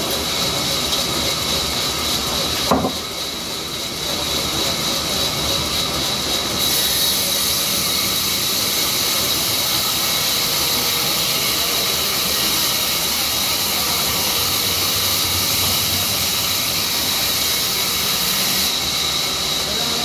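Vertical band saw running and cutting through a mango wood log: a steady hiss with a constant high whine. There is a short knock about three seconds in, and the hiss turns brighter and a little louder about six seconds in as the blade cuts, easing near the end.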